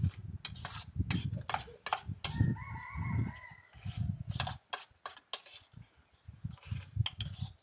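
A rooster crows once, for about a second, a little over two seconds in. Around it are repeated sharp clinks of a steel spoon against a steel bowl and close-up mouth sounds of eating puffed rice with curd.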